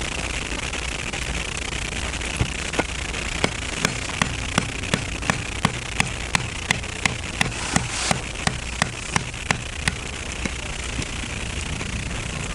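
Steady sizzling hiss from the grill over the campfire. A run of about twenty sharp, evenly spaced clicks, roughly three a second, starts a couple of seconds in and stops around ten seconds in.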